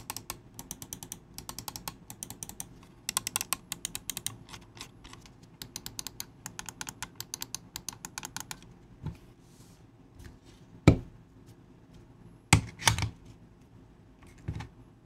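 Mouse button clicks from the Huano Blue transparent pink dot switches of an AJAZZ AJ139 V2 MC gaming mouse, pressed in quick runs for about the first eight seconds, loud and clicky. After that come a few single, louder clicks and knocks, the loudest about eleven seconds in.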